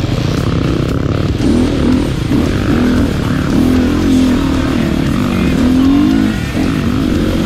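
2017 KTM 350XC-F's single-cylinder four-stroke engine under race throttle, its pitch rising and falling as the rider accelerates and shifts, easing off briefly near the end. A heavy low rumble of wind on the microphone runs underneath.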